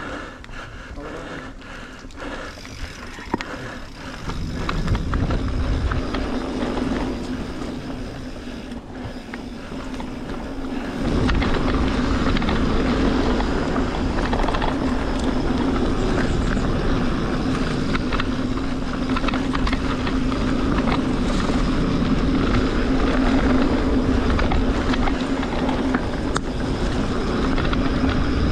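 Mountain bike riding a dirt trail: tyres rolling with scattered clicks and rattles at first, then about eleven seconds in the noise steps up to a steady rush of tyre and wind noise with a low hum as the bike picks up speed.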